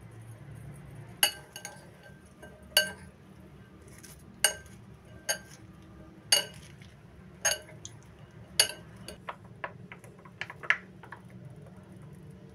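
Metal fork clinking against a glass mixing bowl while tossing shredded cabbage and cucumber salad: sharp ringing clinks about once a second, then a quicker run of lighter clicks near the end.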